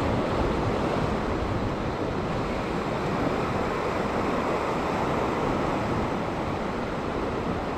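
Sea surf washing and churning against the rock ledge, a steady rushing noise, mixed with wind on the microphone.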